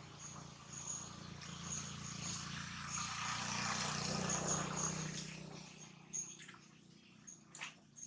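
Outdoor ambience: rustling that swells in the middle and fades, over a steady low hum, with faint short high chirps repeating throughout and one sharp click near the end.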